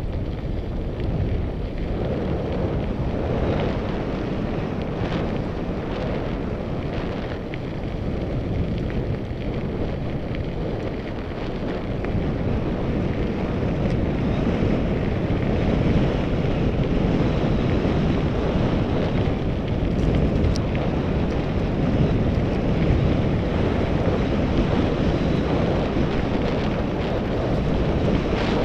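Wind buffeting a helmet camera's microphone during a fast mountain-bike descent: a steady low rumble, getting louder from about halfway. A few short clicks and knocks come in the first third.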